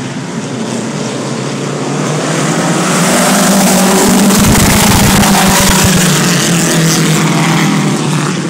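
A pack of vintage midget race cars running past at racing speed. Their engines build up to the loudest about four to six seconds in, then fade as the cars go by.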